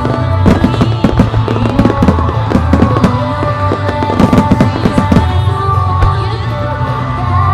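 Aerial firework shells bursting one after another with crackling, over loud music with a steady bass. The bursts come densely for about five and a half seconds, then thin out.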